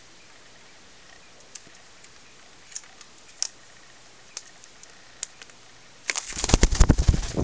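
Light, scattered clicks of a cockatiel's beak and claws on computer keyboard keys, then a loud rapid clatter of knocks lasting about a second near the end.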